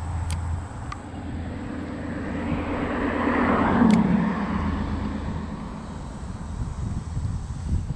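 A vehicle passing on the nearby road: its noise builds to a peak about four seconds in, the low hum dropping in pitch as it goes by, then fading away.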